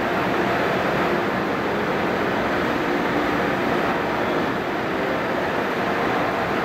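Steady hum and hiss of a stationary 681-series electric limited express train standing at the platform with its onboard equipment running.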